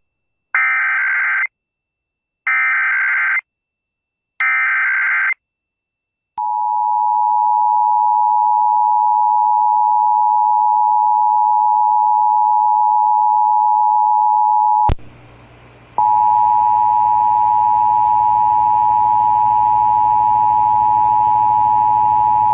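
Emergency Alert System test tones on a radio broadcast: three short screeching SAME digital header bursts, then the steady two-tone EAS attention signal. About two-thirds through the tone cuts out with a click for about a second, then resumes with a hiss underneath.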